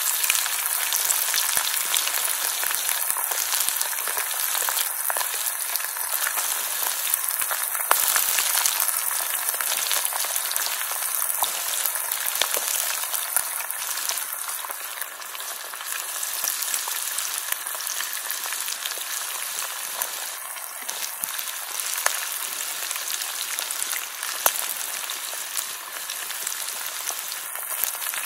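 Chicken frying in hot oil: a steady sizzle with scattered crackles and pops.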